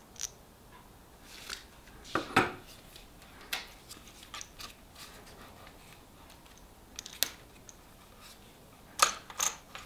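Scattered metal clicks and clinks as an e-bike's handlebar stem faceplate, its clamp bolts and the handlebar are handled and fitted into the stem clamp. The loudest knocks come about two seconds in and a few more near the end.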